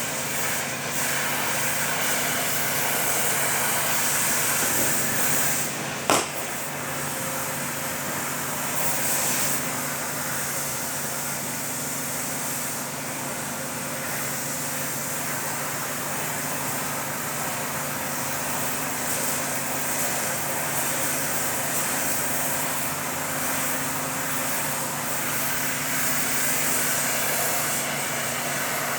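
Steady mechanical hum of a running machine or motor, with one sharp click about six seconds in.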